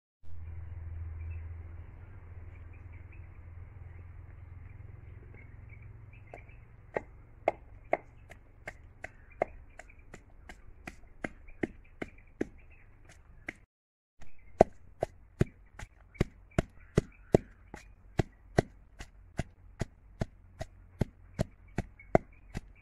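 Wooden pestle pounding garlic cloves in a mortar: steady dull strikes about two a second, starting about six seconds in, with a short break midway.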